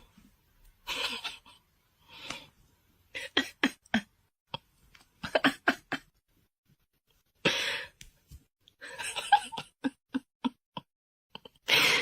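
A person laughing on and off: breathy bursts of giggling and short clipped chuckles with pauses between them.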